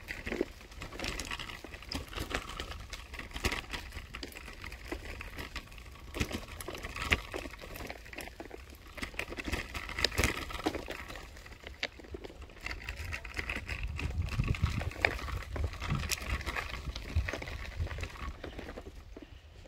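Kick scooter rolling along, its wheels rattling with many irregular clicks and ticks over a steady low rumble.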